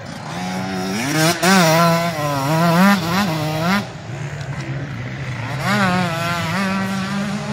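Enduro motorcycle engine revving hard, its pitch swinging up and down with throttle and gear changes. It is loudest in the first half, drops briefly, then rises again near the end.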